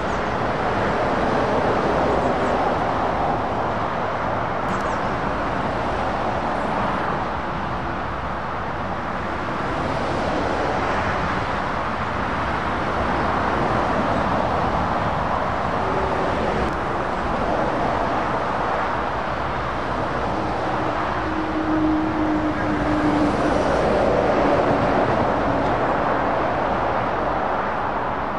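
Continuous motorway traffic: lorries and cars passing, the tyre and engine noise swelling and fading as each goes by.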